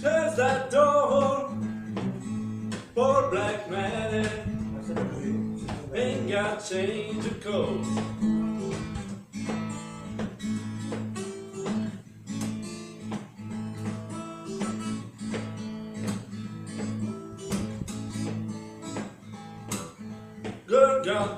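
Country blues played on acoustic guitar: a driving one-chord groove over a steady droning bass. A higher, wavering melody line sits over it through the first eight seconds or so and comes back near the end.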